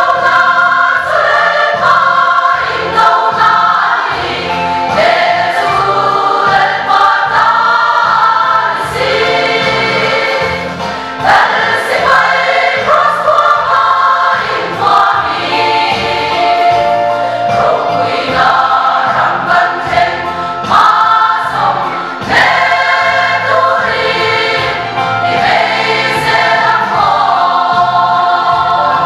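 A large choir of women singing a hymn together, over a steady low beat of accompaniment.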